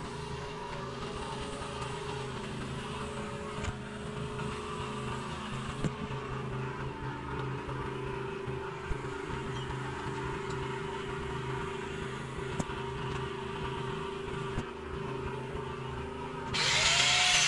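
A small engine running steadily. Near the end a power tool starts suddenly and loudly, cutting into a steel pipe.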